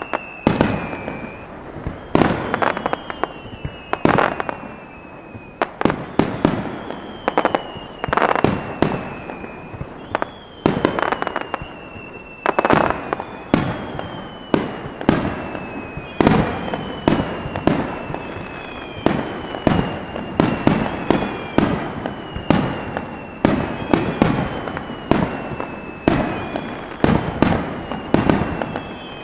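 Fireworks display: aerial shells bursting in rapid succession with sharp bangs. A falling whistle sounds over them about every one and a half to two seconds.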